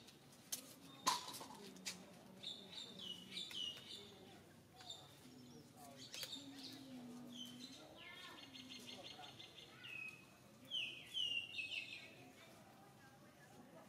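Birds chirping in short, high, falling calls, with a rapid trill about eight seconds in. A sharp knock sounds about a second in.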